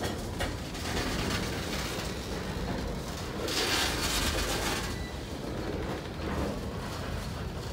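Freight cars rolling past close by: a steady rumble and clatter of steel wheels on rail. The noise grows louder and brighter for about a second and a half around the middle.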